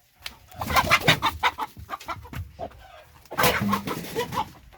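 A rooster squawking in two loud bursts of calls, one near the start and another about three seconds later, as it is handled for slaughter.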